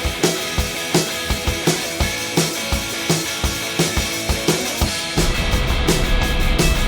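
Rock soundtrack music: a steady drum beat of kick and snare, with bass and the fuller band coming in about five seconds in.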